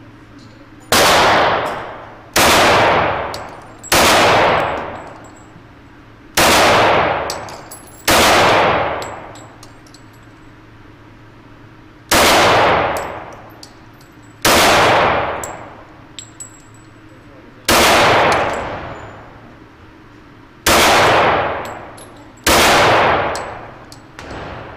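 Ten .45 ACP pistol shots from a Tanfoglio EAA Witness-P Carry, fired singly at uneven gaps of about one to four seconds. Each shot is a sharp crack followed by a long reverberant tail from the enclosed indoor range, with faint high clicks between shots.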